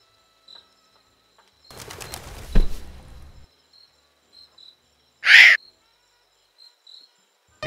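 Cartoon bird sound effects: wings flapping for about two seconds with a sharp knock in the middle, then one short, loud bird call about five seconds in. Faint high chirps come and go.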